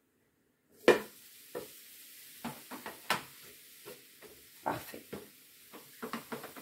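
Crêpe cooking on the hot plate of an electric crêpe maker with a faint steady sizzle, and a dozen or so light taps and clicks as the crêpe is handled and a spatula is put down, the loudest about a second in.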